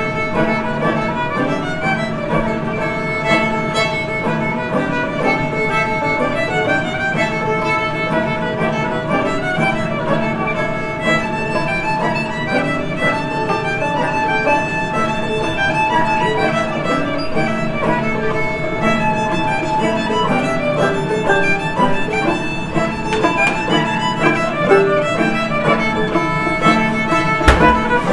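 Fiddle and banjo playing a tune together, the fiddle bowing a busy stream of notes over the picked banjo. There is a single sharp knock near the end.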